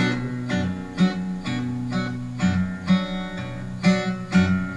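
Acoustic guitar playing chords in a steady rhythm, a new strum about every half second over a moving bass line: an instrumental break in a song, with no singing.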